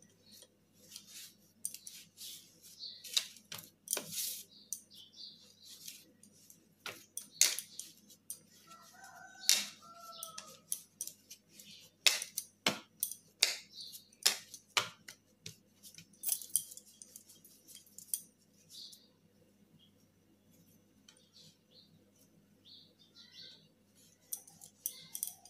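Hands kneading and pressing soft wheat dough on a floured plastic plate: irregular soft slaps, squishes and sharp taps of dough and fingers against the plate, quieter for a few seconds near the end, over a steady low hum. A short pitched call glides briefly about nine seconds in.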